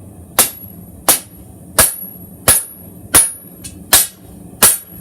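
Hand hammer striking a hot bar of W2 steel on the anvil, drawing out the point of a chef's knife blade: seven evenly spaced blows about 0.7 s apart, each with a short high metallic ring. A low steady hum runs underneath.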